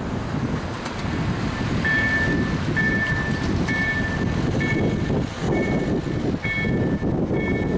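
Level-crossing warning bells from KLD-4103 electronic slow-ringing bell generators start about two seconds in, giving a two-tone ding roughly once a second: the crossing has been activated for an approaching train. Under them runs the steady noise of cars driving over the crossing.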